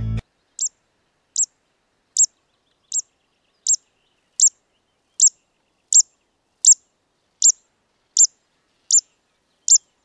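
Zitting cisticola giving its repeated sharp "zitting" call, likened to the snips of a pair of scissors. It is a series of thirteen short, high notes, one about every three-quarters of a second.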